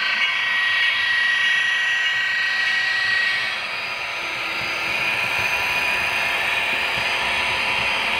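Model train locomotives running past close by: a steady high whine of their electric motors with wheel noise on the rails, and a steady high tone over the first three seconds or so.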